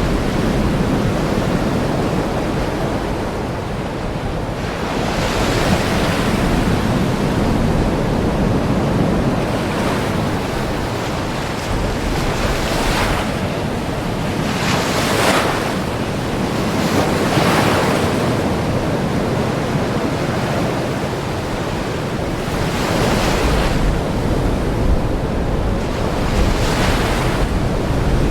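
Ocean waves breaking and washing on the shore, a steady surf hiss that swells with each wave every few seconds, with some wind.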